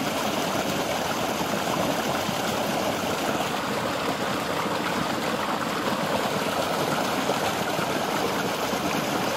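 Steady rushing and splashing of water pouring down a chute onto the cup-shaped paddles of a homemade water wheel and spilling out below.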